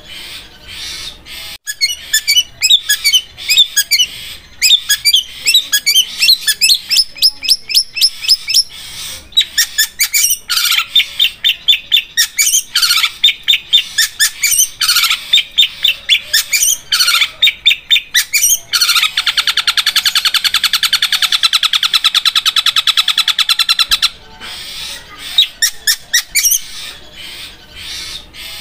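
Long-tailed shrike (cendet) singing loud, rapid series of sharp high chirps. A few seconds past the middle they run together into a very fast, unbroken trill lasting about five seconds, sharp like a sewing machine, before breaking back into separate notes.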